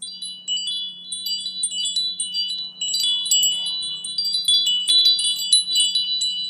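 Wind chimes tinkling: many quick, high, overlapping chime notes ringing out, over a faint steady hum.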